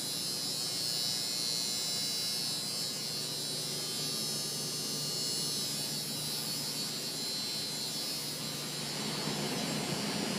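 Machinery running steadily: an even electric hum and buzz with a high hiss above it, no change in speed.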